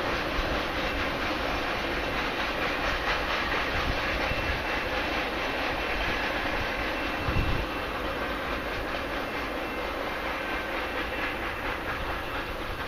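Long freight train of autoracks and mixed cars rolling away on the rails: a steady rumble with wheel clatter that slowly fades. A brief low thump comes about seven seconds in.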